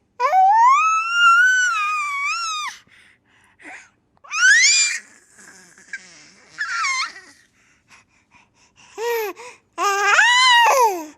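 A baby's high-pitched squealing vocalizations. A long wavering squeal lasts about two and a half seconds, shorter rising squeals follow around the middle, and another long one comes near the end.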